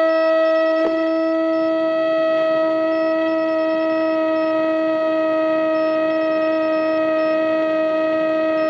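Radio-controlled model aeroplane motor running at a steady high speed, a constant whine at one pitch after spinning up, with a faint high-pitched beeping repeating every few seconds.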